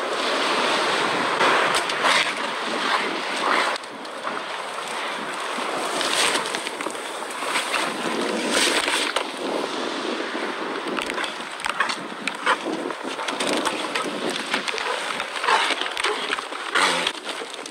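Wind and dry grass rustling and brushing against the microphone, with irregular scuffs and knocks from the camera being moved through the grass, over a steady rushing hiss.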